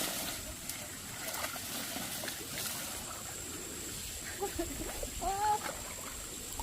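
Shallow pond water splashing and trickling, with a few short sharp splashes in the first three seconds.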